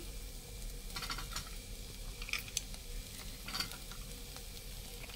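Minced meat frying in a pan, a soft steady sizzle, with a few short scrapes and clinks of a spoon against the pan about one, two and a half and three and a half seconds in.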